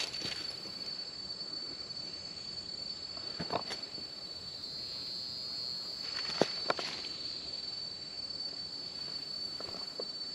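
Jungle insects keep up a steady high-pitched buzz that swells briefly in the middle, with a few scattered footsteps or twig snaps on the trail.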